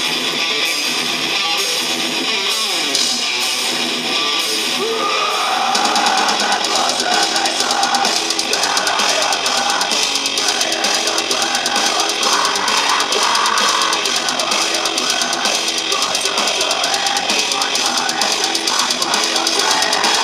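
Live band playing loud heavy rock with electric guitar and drum kit, heard from the crowd; the sound grows fuller about five seconds in as a steady cymbal wash comes in.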